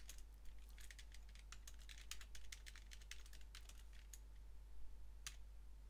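Quiet typing on a computer keyboard: quick runs of key clicks in the first few seconds, then a few scattered keystrokes, one a little louder near the end, over a steady low hum.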